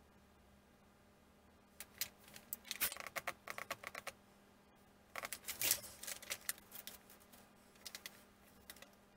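Thin wooden model-kit parts clicking and clattering as they are picked up and handled on a workbench, in three quick bunches of light taps.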